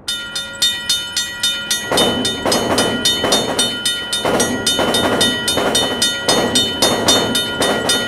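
Czech level crossing warning bell ringing rapidly, about four strikes a second. From about two seconds in, the pulsing rattle of a passing train joins it.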